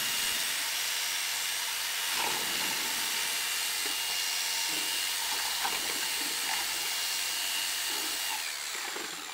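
Electric drill running steadily with a paint-mixing paddle, stirring settled pottery glaze in a bucket. It makes a constant high motor whine over a hiss, then winds down and stops near the end.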